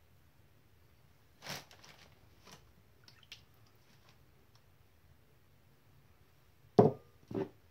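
A few short splashes and knocks as liquids are tipped from small glasses into a wooden mixing bowl. The two loudest come near the end, a second apart.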